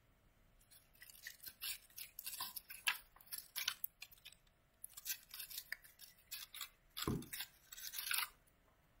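Rustling and crinkling of craft paper as a paper leaf is handled and pressed onto a paper flower's stem to glue it, an irregular run of short scratchy sounds. A dull thump a little after seven seconds.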